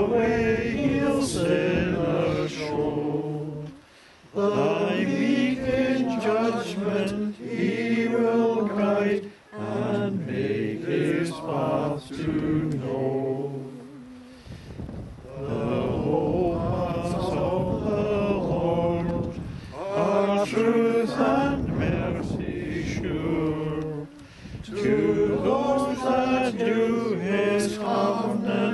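A small congregation singing a metrical psalm together, in long sung phrases with short breaks between the lines.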